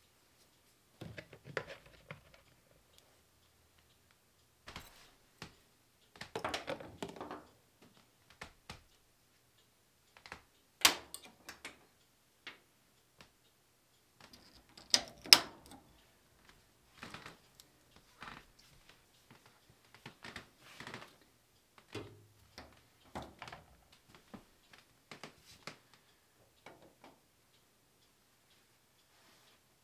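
Small household items being handled and set down by hand: scattered knocks, clicks and rustles with quiet gaps between them, including two sharp clicks near the middle.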